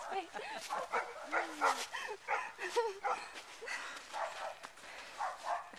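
Labrador barking excitedly in a quick string of short barks that rise and fall in pitch.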